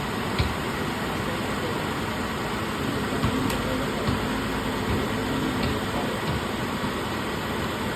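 Infiniti JX35's 3.5-litre V6 running steadily at idle, with a constant hum and a few faint clicks, while its alternator is checked for charging.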